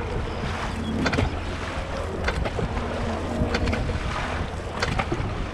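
Dragon boat crew's paddles striking and pulling through the water in unison, a splashy stroke about every second and a quarter, over a steady rush of wind noise on the microphone.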